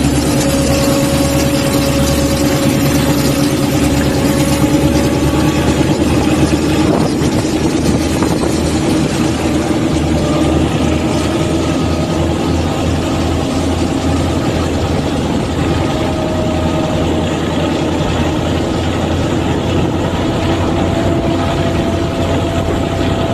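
Diesel locomotive engine running under power as the train pulls away, a steady loud drone with slowly shifting engine tones.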